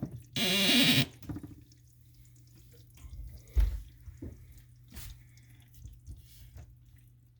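A short rushing noise in the first second, then slow drips from the bathroom sink faucet with a single low thump about three and a half seconds in.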